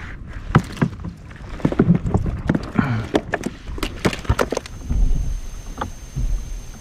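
A rapid string of sharp knocks and clatter as a horse mackerel on a sabiki rig is swung aboard a plastic fishing kayak and flaps against the deck and gear. The knocking eases off after about five seconds.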